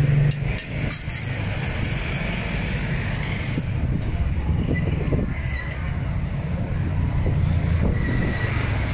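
Steady low rumble of road traffic on a city street, with a few faint clicks about half a second in.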